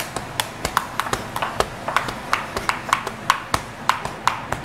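A fast run of sharp taps or clicks, several a second, somewhat uneven in spacing.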